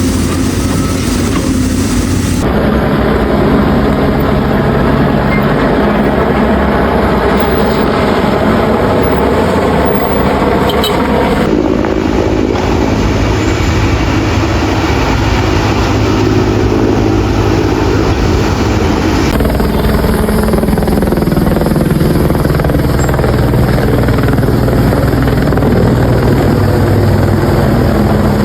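Firefighting helicopter running, a steady rotor and engine drone. The sound changes abruptly about two, eleven and nineteen seconds in.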